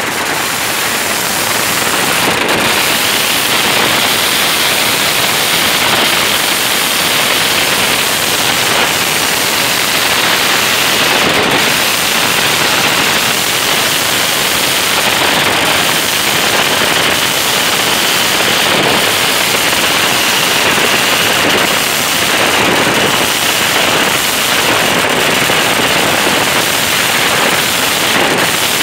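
Firecrackers bursting in a dense, unbroken crackle, so many that the bangs merge into one loud, steady rattle. They are set off at a 'hearth-plough' firecracker site (烘爐犁炮), where firecrackers are thrown onto a heated iron plate to explode.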